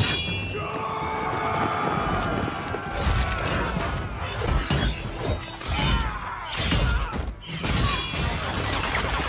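Action-film battle soundtrack: music mixed with repeated crashes, impacts and booms, growing dense from about three seconds in.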